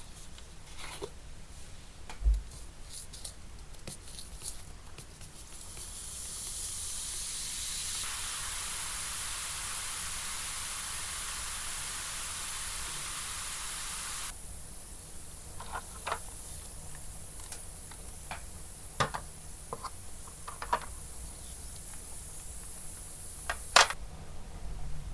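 A steady spraying hiss that builds up, holds for about eight seconds, then cuts off sharply. Small taps and clicks from handling the piece come before and after it.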